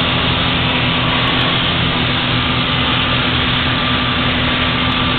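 Piston engines and propellers of a light twin-engine aircraft running steadily in flight, heard from inside the cabin as an even, unbroken drone.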